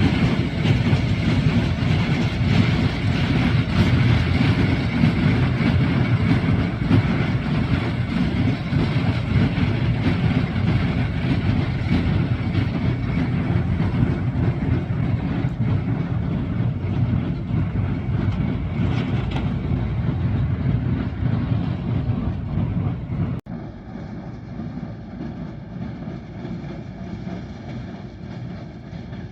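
Tractor running steadily while baling hay; the sound drops suddenly to a lower level about 23 seconds in.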